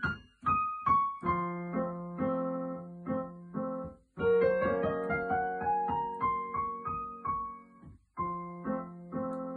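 Digital piano played solo: melody notes struck over held low notes, with a rising run of notes about four seconds in and a short break near the end.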